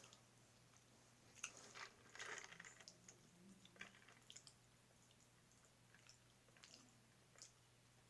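Faint close-up chewing of a chili-and-ketchup sausage dog: soft wet mouth smacks and clicks, busiest in the first few seconds, then sparser.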